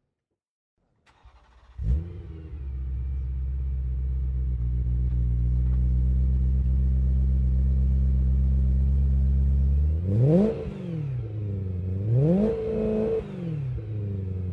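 BMW E90 M3's 4.0-litre V8 with an Akrapovic slip-on exhaust starting up about two seconds in, then idling steadily. Near the end it is revved twice, each rev rising and falling back to idle.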